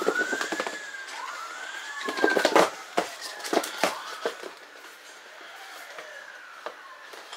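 A siren wailing, its pitch rising and falling twice, with a few sharp clicks and rustles from a lanyard and its clip being handled.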